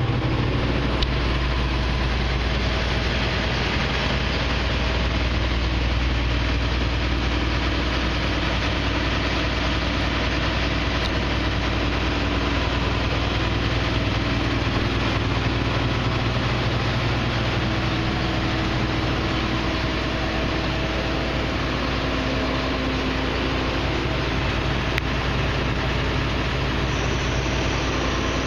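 Claas Tucano 430 combine harvester's diesel engine running steadily.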